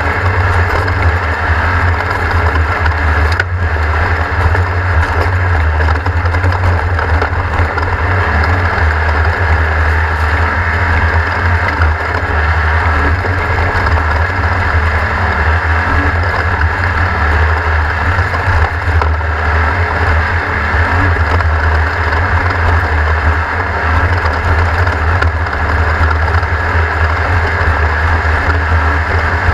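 Class 1600 off-road race car's air-cooled Volkswagen 1600 engine running steadily and loudly, with road and wind noise over it.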